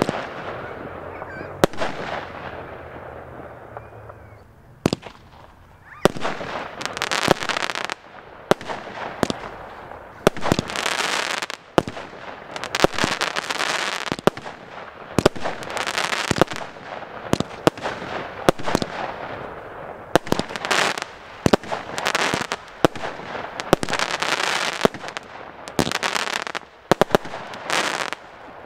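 Multi-shot consumer firework cake firing shot after shot, about one to two a second: sharp launch thumps and bangs, each followed by hissing and crackling of bursting stars.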